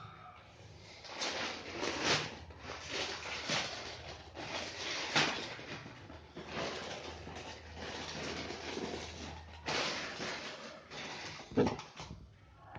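Packaging being opened and handled by hand: irregular rustling and scraping, with a sharp knock near the end.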